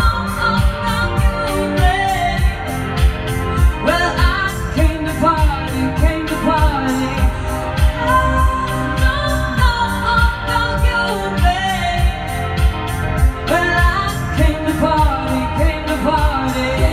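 Woman singing live into a microphone over an electronic backing track played from Ableton Live, with a steady kick-drum beat and fast, even hi-hat ticks.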